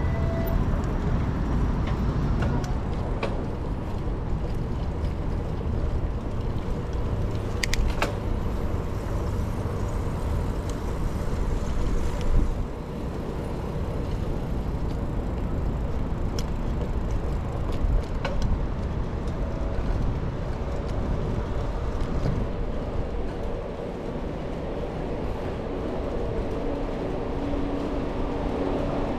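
Steady low rumble of wind on the microphone and tyre noise from a moving bicycle, broken by a few sharp clicks and rattles.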